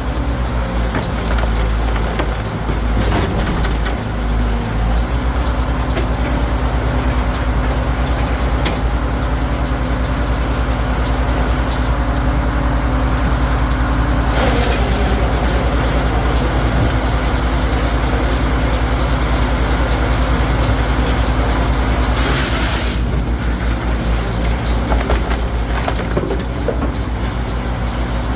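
Firewood processor running steadily, its engine drone under the crunch and crack of logs being cut and split, with a short hiss about three-quarters of the way through.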